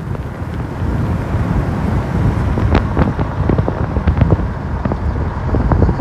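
Wind buffeting the microphone from a moving car, in irregular gusts over the low rumble of the car on the road.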